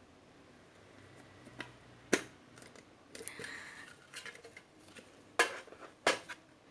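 Hands handling a CD album and its packaging: a brief rustle and a few sharp clicks, the loudest about two seconds in and twice near the end.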